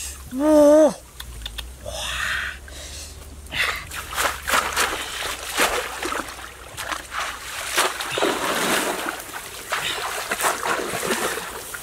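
Irregular splashing and sloshing in shallow muddy water as a bamboo plunge-basket fish trap (angrut) is thrust down and lifted again and again while a man wades. About half a second in comes a short call in a man's voice, rising then falling, louder than the splashing.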